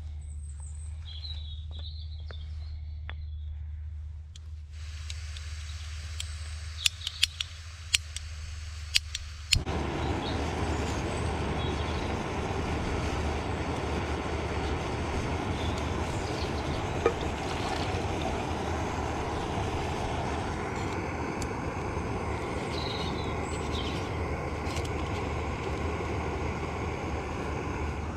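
Jetboil gas canister stove being lit: gas starts hissing about five seconds in, a few sharp clicks of the igniter follow, and near ten seconds in the burner catches and burns with a steady rushing sound. Birds chirp at first.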